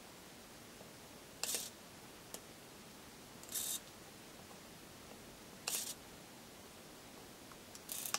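Operating mechanism of a handbuilt 7mm scale GWR double ground signal, making four short, high-pitched mechanical whirs about two seconds apart as the discs turn between on and off.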